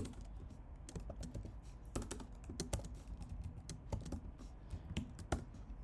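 Typing on a computer keyboard: an irregular run of key clicks, some keystrokes sharper and louder than the rest.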